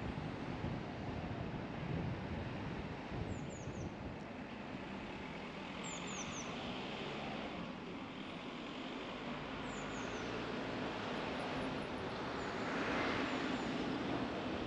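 Car driving slowly through a village street: steady road and tyre noise with wind on the microphone, briefly louder near the end. A bird's short, high, falling chirps come in little groups of three a few times.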